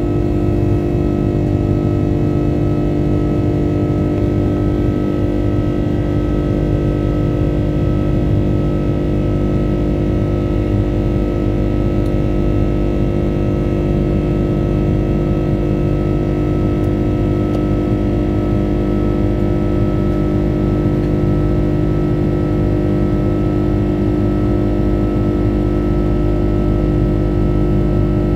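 Airbus A330-200's Rolls-Royce Trent 700 turbofan engines at climb power just after takeoff, heard from inside the cabin over the wing: a steady drone of several fixed tones over a low rumble.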